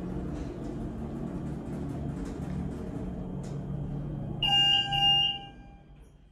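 Elevator car travelling with a steady low hum, then, about four seconds in, a loud electronic arrival chime sounds for about a second as the car reaches the floor, and the hum dies away.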